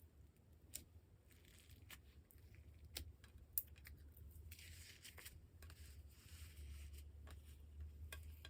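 Slime being worked by hand, faint sticky clicks and small pops with a soft crackle that grows denser from about halfway through.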